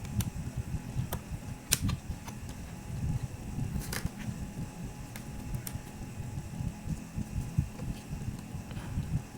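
Hands working on an opened laptop: scattered sharp clicks and light knocks of small plastic and metal parts, the strongest about two and four seconds in, over low handling rumble.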